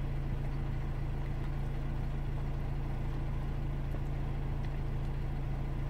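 Mercedes-Benz W212 E250's 2.2-litre four-cylinder diesel engine idling steadily from a cold start, heard from inside the cabin as an even low hum.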